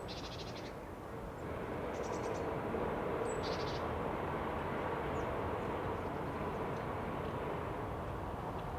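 Birds giving short, rapid rattling calls three times in the first few seconds, then a few faint chirps, over a steady rumble of distant traffic.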